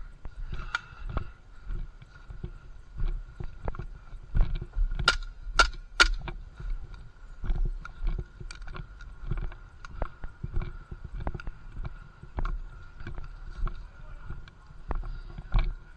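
Irregular dull thumps and knocks of a player moving about with a body-worn camera, the kit bumping with each step. About five seconds in come three sharp cracks in quick succession, half a second apart, with a faint steady whine underneath.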